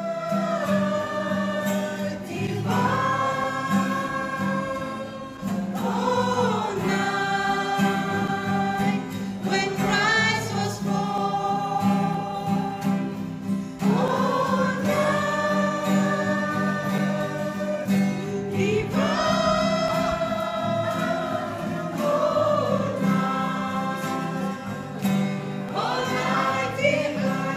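A mixed group of adults and children singing a religious song together in phrases a few seconds long. Two acoustic guitars are strummed underneath.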